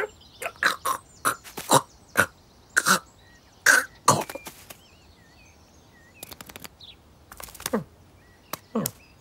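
Cartoon cat noises voiced by a person: a run of short grunts, huffs and little chirps as the cat swats and pounces, with a couple of falling squeaks near the end. Faint high chirps come through in a quieter stretch in the middle.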